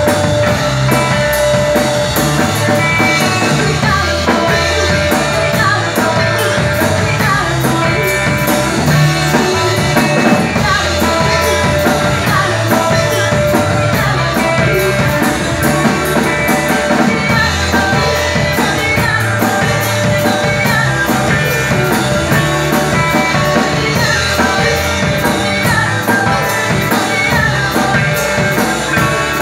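Live rock band playing loudly: a woman singing into a microphone over electric guitar and a drum kit.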